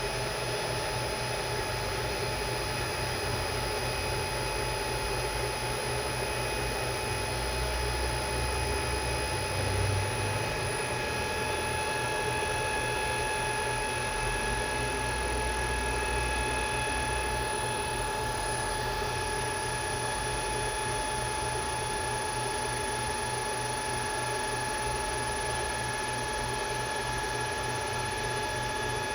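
Electric motor running steadily from a freshly repaired LS iS7 inverter on a test run, with a fast, even low rattle and several steady high-pitched electrical whines over it.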